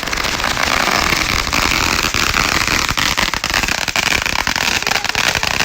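A firework hissing and crackling loudly and steadily, with dense fine crackles throughout. It ends in a quick run of sharp pops near the end and then stops.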